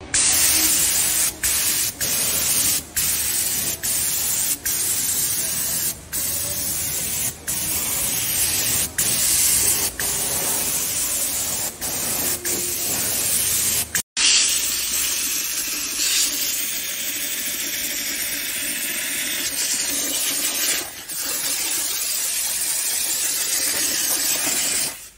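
Compressed-air gravity-feed spray gun hissing as it mists the engine bay, in bursts broken by short gaps about every second as the trigger is let go, then a longer, mostly unbroken spray in the second half.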